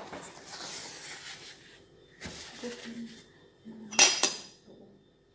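A steel pot and metal utensils being handled and wiped: rubbing and light clatter, then one sharp, ringing metal clank about four seconds in.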